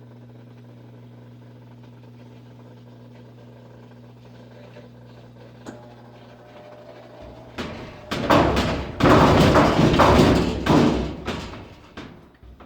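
Admiral washing machine running with a steady hum, then from about seven and a half seconds in, several seconds of loud, heavy, irregular knocking and banging: the excessive vibration of an unbalanced load in the drum.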